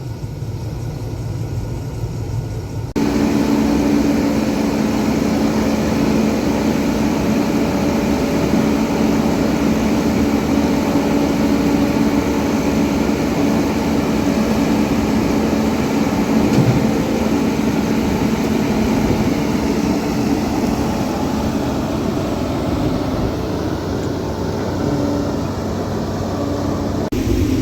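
Combine harvester machinery running steadily, with a constant drone. About three seconds in the sound changes abruptly to a louder, fuller machine noise.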